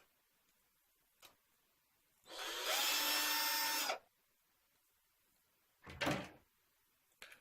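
Small electric screwdriver running steadily for just under two seconds, backing out a screw, followed a couple of seconds later by a short clatter.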